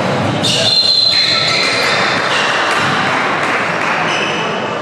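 Crowd chatter and game noise echoing in a gymnasium during a basketball game, with a high steady tone sounding for about a second and a half shortly after the start.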